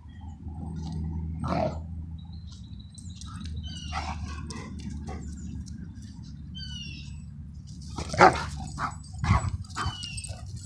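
Pit bull barking a few times, with the loudest barks near the end, over a steady low hum. Birds chirp now and then.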